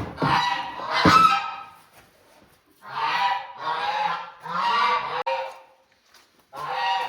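Domestic geese honking: a series of about six loud honks, each under a second long.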